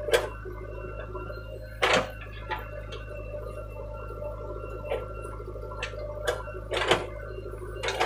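JCB 3DX backhoe loader's diesel engine running steadily as the backhoe digs, with several sharp knocks from the bucket and arm, the loudest near the start, about two seconds in and near the end.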